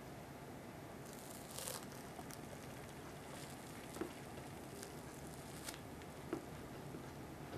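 Quiet handling sounds: a short crackling rustle about two seconds in and a few faint soft clicks later, over a steady low hiss.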